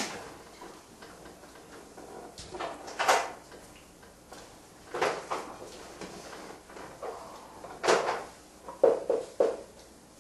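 Marker pen writing on a whiteboard: a few short scratchy strokes, with a quick cluster of strokes near the end.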